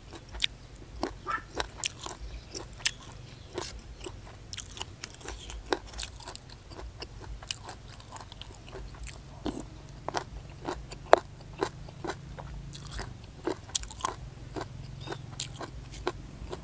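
Close-up chewing of hed phor puffball mushrooms from a curry: a long run of irregular crisp crunches as the round mushrooms are bitten and chewed.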